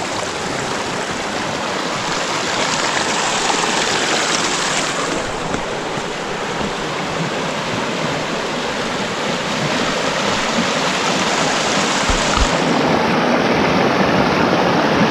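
The Opalescent River rushing over boulders in shallow rapids: a steady rush of running water that gets a little louder in the last few seconds.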